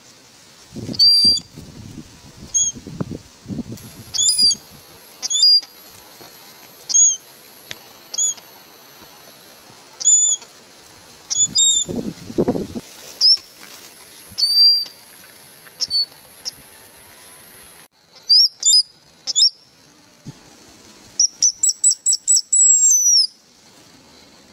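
A young eagle on its nest giving shrill, whistled cries, roughly one a second, with a quick run of about eight cries near the end. There are bursts of wing flapping about a second in and again near the middle.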